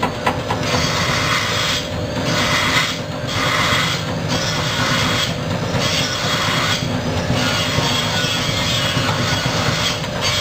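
Cassava chip slicing machine running and cutting cassava into thin round chips: a loud, steady mechanical clatter, with a rattle that swells and fades every second or so through the middle.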